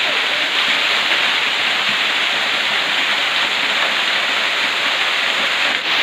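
Small waterfall pouring down through an opening into a rock cave: a loud, steady rush of falling water, with a brief dip just before the end.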